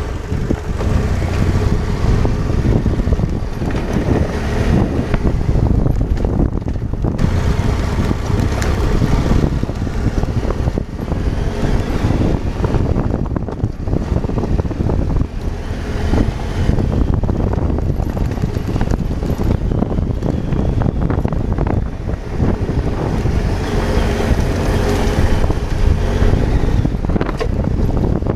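Adventure motorcycle engine running as the bike climbs a rocky dirt track, with wind noise buffeting the microphone.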